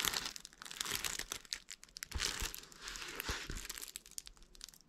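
Clear protective plastic film on a diamond-painting canvas crinkling as the canvas is handled and shifted, an irregular crackle that comes and goes.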